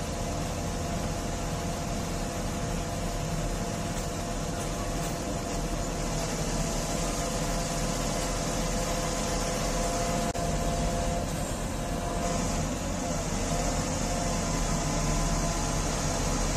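XCMG QY25K5A truck crane's diesel engine and hydraulics running steadily, a continuous drone with a few held whining tones.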